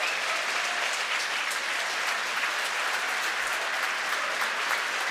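Crowd applauding steadily, greeting a confirmed rocket stage separation.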